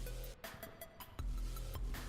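Electronic background music with a heavy, sustained bass line and a steady beat of sharp percussion hits.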